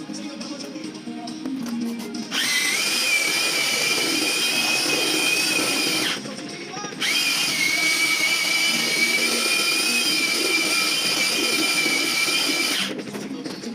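An electric power tool's motor running at a steady high whine for about four seconds, stopping for under a second, then running again for about six seconds.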